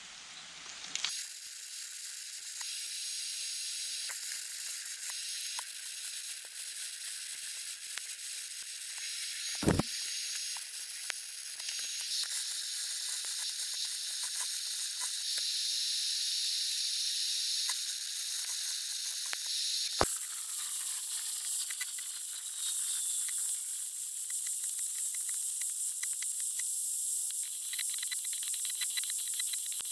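Stick-welding arc from a SUZUKID WELD-ON140 arc welder running a bead on steel: a steady crackling hiss that starts about a second in. A single thump comes near the middle and a sharp click about two-thirds of the way through.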